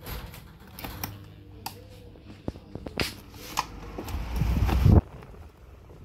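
Electric desk fan being switched on: several sharp clicks from its push-button controls, a brief low motor hum, then the fan's airflow buffeting the microphone, swelling over about a second before cutting off abruptly.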